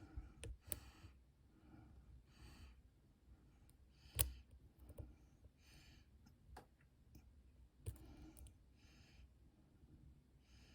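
Faint, scattered clicks of a pick working inside an MCM AS6 dimple lock under light tension, the loudest about four seconds in, with soft breaths between them.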